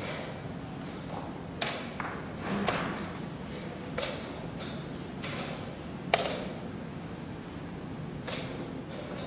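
Wooden chess pieces knocking onto the board and chess clock buttons clicking as moves are made in quick succession during blitz play: a string of separate sharp knocks, the loudest about six seconds in.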